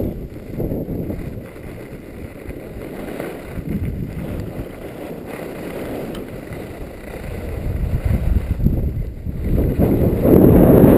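Wind rushing over the camera microphone and skis sliding on packed snow during a downhill ski run, growing louder about nine seconds in.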